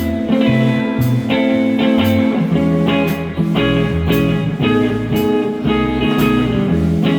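Live band playing an instrumental intro: guitar over a walking bass line, with a steady beat struck about once a second.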